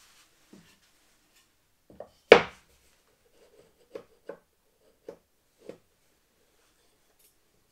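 Wooden workpieces being handled and knocked against each other on a workbench: one loud knock about two seconds in, then several lighter taps about a second apart.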